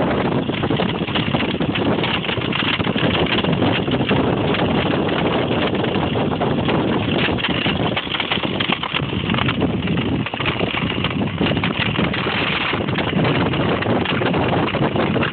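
Steady wind noise on the microphone mixed with a blokart's ice runners scraping and rattling over the ice while it sails at speed.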